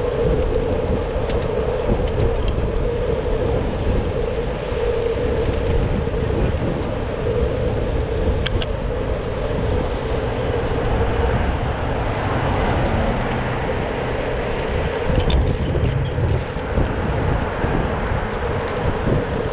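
Wind noise on an action camera's microphone and road noise while riding a Brompton folding bicycle, over a steady hum, with a few sharp clicks.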